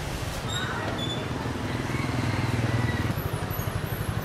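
Street traffic, mostly motorbike engines running close by: a steady low engine rumble that swells slightly partway through.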